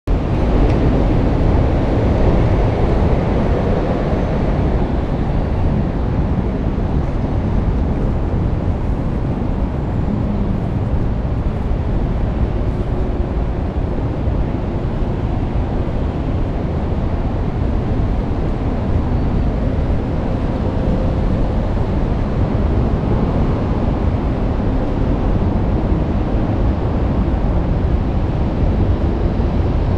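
Steady street noise of traffic on a busy multi-lane road, with wind on the microphone.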